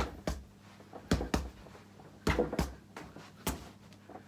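Bare fists thudding into a freestanding Gallant punch bag: about seven punches, mostly in quick pairs about a second apart.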